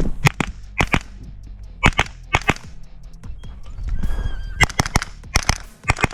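Pistol-calibre carbine fired rapidly on a practical-shooting stage: loud, sharp shots, mostly in quick pairs, with short pauses between groups.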